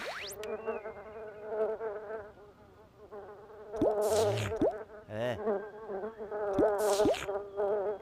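Buzzing, warbling electronic cartoon sound effects: a quick rising sweep at the start, then a wavering drone with several fast sliding pitch swoops in the second half.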